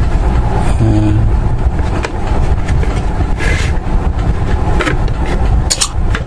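Steady low background rumble, with a few light clicks and rattles of the plastic charger case and circuit board being handled as the board is lifted out, the last two close together near the end.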